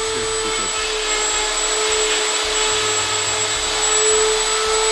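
Rotary carving tool running at a steady high whine as its burr grinds into antler.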